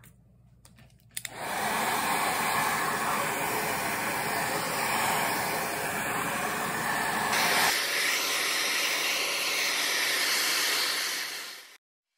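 National EZT603 12V cordless impact driver running free with no load, a steady motor sound lasting about ten seconds. About two-thirds of the way through, the sound changes abruptly as its low end drops away.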